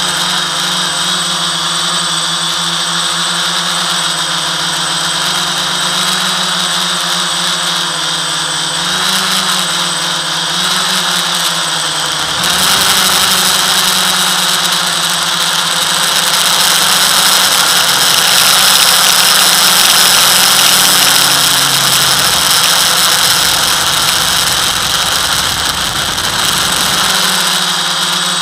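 FPV quadcopter's electric motors and propellers whining steadily, getting louder about twelve seconds in and again a little past the middle.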